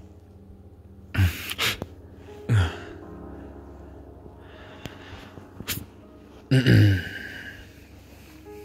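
A person's short, sharp breaths near the microphone: a pair about a second in, another at two and a half seconds, and the loudest about six and a half seconds in.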